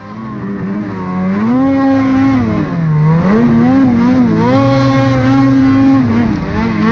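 Snowmobile engine revving under throttle while the sled ploughs through deep powder. The pitch climbs over the first couple of seconds, drops briefly near the middle, then holds high and steady with small dips.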